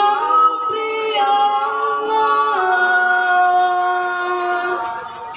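A group of women singing together into microphones in long, held notes, changing pitch twice before one long final note that fades out near the end.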